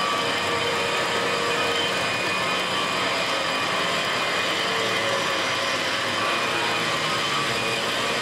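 Powered drill turning a long thin rod bit that hollows out the inside of a man-made rock crystal snuff bottle blank. It runs as a loud, steady machine noise with several steady tones.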